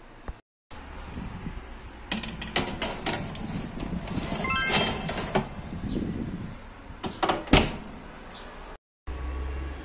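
A metal baking tray is slid into an oven with several clattering knocks and a short rising metallic scrape around the middle. The oven door shuts with a loud clunk about three-quarters of the way through.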